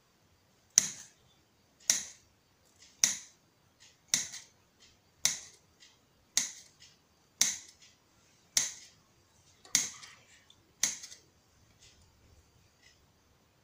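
A knife cutting rounds off a log of frozen pastry dough on a marble counter, each cut ending in a sharp click of the blade on the stone. There are ten cuts at about one a second, stopping near the end.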